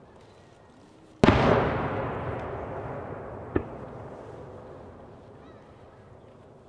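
A firework shell bursts with one loud bang about a second in, its boom rolling on and dying away slowly over several seconds. A smaller, sharp crack follows about two seconds later.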